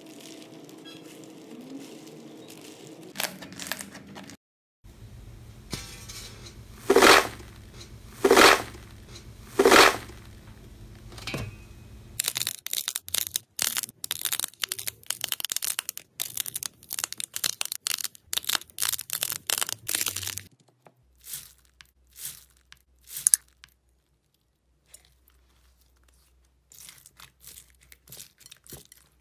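Hands squeezing and pressing slime, much of it packed with foam beads: dense crackling and popping, with three loud pops about seven to ten seconds in and a short quiet gap near the end.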